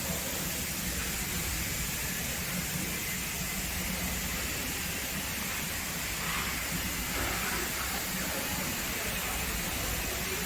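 Steam locomotive standing with a steady hiss of escaping steam over a low rumble.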